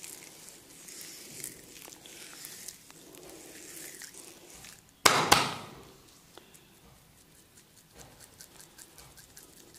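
Hands working a head and body massage: soft rubbing, then about five seconds in a sudden loud double snap that dies away quickly, followed by a run of faint quick clicks.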